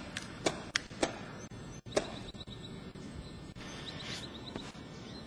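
Airsoft guns firing in a woodland game: about five sharp snapping shots at uneven spacing in the first two seconds, over a steady outdoor hiss, followed by faint high ticking.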